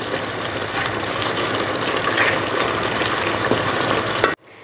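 A red sauce frying in oil in a pot, sizzling and bubbling with a steady crackling hiss that cuts off abruptly near the end.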